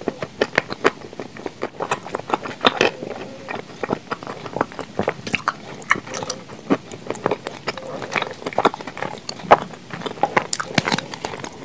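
Close-miked chewing of Blue Uzbek clay chalk mixed with cream, a run of sharp, irregular crunches and mouth clicks.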